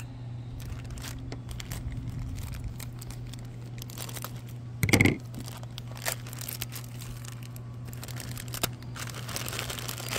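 Thin clear plastic toy bag crinkling and tearing as it is pulled open by hand, with a brief loud burst about five seconds in and denser crinkling near the end.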